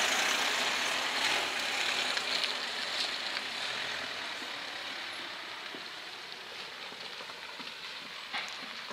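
Cars driving away over a level crossing, a steady hiss of tyres and engines that slowly fades.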